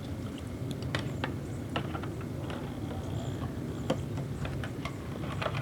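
Scattered light clicks and knocks of dishes and utensils handled during dish washing, over a steady low rumble.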